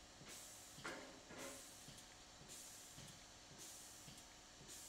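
Faint hiss from a batter depositing machine, coming and going every second or so as it doses cake batter into muffin cups.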